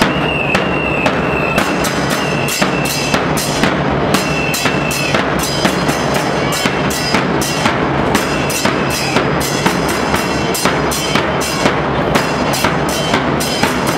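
Murga bass drums (bombos) with cymbals beating a fast, steady dance rhythm, about two accented strikes a second.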